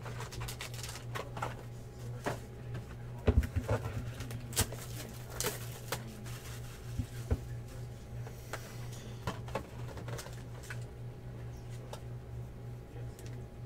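Plastic shrink wrap crinkling and tearing as a sealed cardboard box of trading cards is unwrapped and turned over in the hands, with scattered sharp clicks and taps, thickest a few seconds in. A steady low hum runs underneath.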